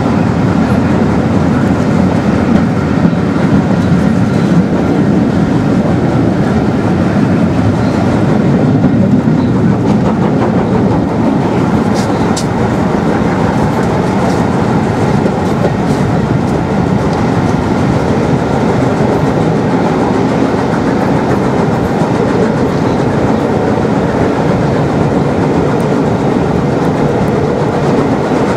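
Passenger coach of a steam-hauled train running along the track, heard from aboard: a loud, steady running noise, with a couple of brief high clicks about twelve seconds in.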